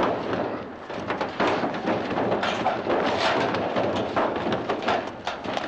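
A scuffle on a roof: shoes scraping and knocking on the roofing, bodies and clothing rubbing, in a busy, irregular clatter of knocks and rustling.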